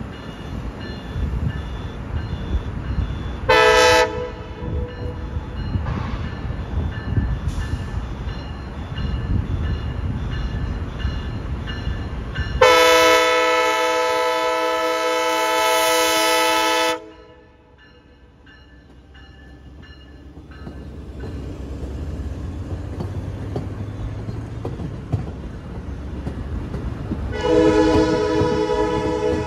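Passenger diesel locomotive horn sounding a chord of several tones: a short blast about three and a half seconds in, a long blast of about four seconds around the middle, and another blast starting near the end. Low rumble of the train running between the blasts.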